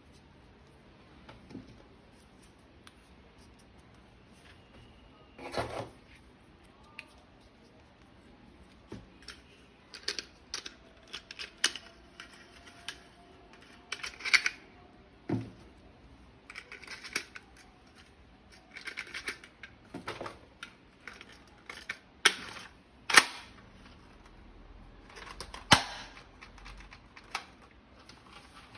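Irregular plastic clicks and snaps with short rustles, from a toy gun and its packaging being handled. There are several sharper snaps, about six seconds in, around fourteen to fifteen seconds, and near twenty-three and twenty-six seconds.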